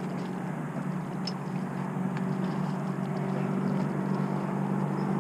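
A boat motor drones steadily at a low pitch, growing slightly louder through the stretch.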